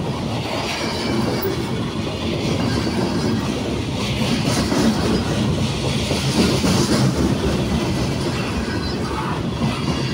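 Freight cars of a mixed manifest train rolling past at speed close by: a steady rumble with a rapid clatter of wheels.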